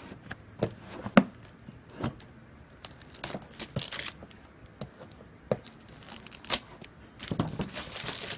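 Clear plastic wrap being torn and pulled off a cardboard box, crinkling, with scattered short sharp taps and scrapes. The crinkling becomes busier and continuous near the end.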